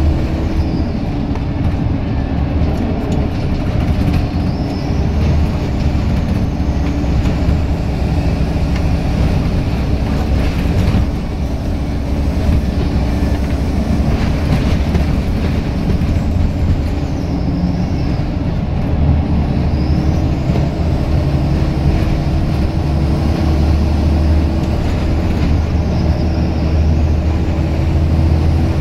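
Scania L94UB single-deck bus heard from inside the saloon: its rear-mounted diesel engine is working hard under heavy throttle over steady road noise. The engine note drops about a second in and climbs back about twenty seconds in.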